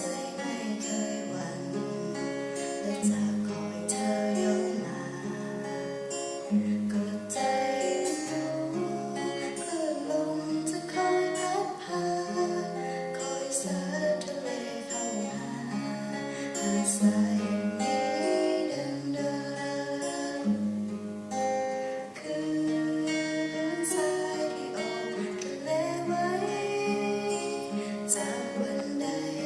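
Solo classical guitar played fingerstyle: a slow melody with chords, over plucked bass notes that change about every second.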